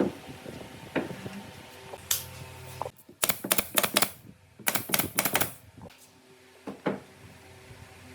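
Quick bursts of sharp taps and knocks from hand work on wood, in two rapid clusters near the middle, with single knocks before and after.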